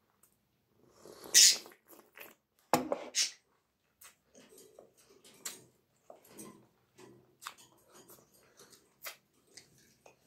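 A loud slurp of juice drunk from a saucer of lemon slices, then a knock, then wet chewing, lip-smacking and mouth clicks while a lemon slice is eaten.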